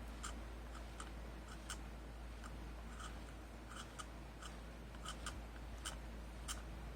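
Faint, irregular light clicks and taps, about a dozen, of small parts of a rotary hammer drill being handled and set down during disassembly, over a steady low hum.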